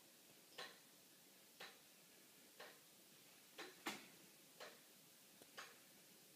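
Homemade wooden pendulum clock with plywood gears and an anchor escapement, ticking quietly once a second in time with its seconds pendulum. One louder extra click comes just before the fourth second.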